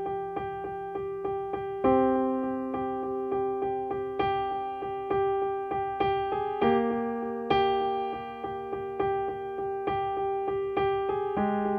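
Solo smooth-jazz piano improvisation: one note repeated about three times a second, over low chords that change three times.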